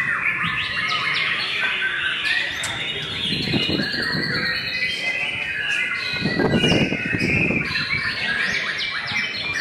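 White-rumped shamas singing: a dense, unbroken stream of fast, varied song phrases. People's voices rise underneath about three and a half seconds in and again, most loudly, around six to seven seconds in.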